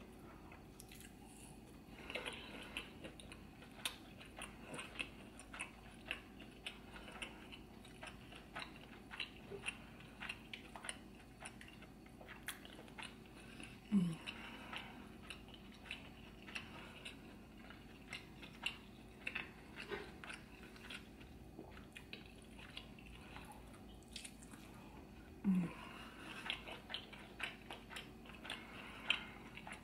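Close-miked wet chewing of soft seafood, with many small mouth clicks. Twice, about halfway through and near the end, there is a short low throat sound.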